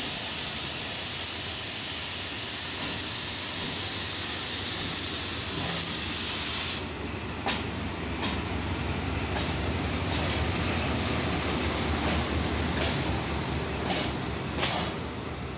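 Diesel locomotive moving slowly past at close range. A loud, steady hiss cuts off sharply about seven seconds in. Then the engine's low rumble builds, with several sharp clacks of the wheels over rail joints.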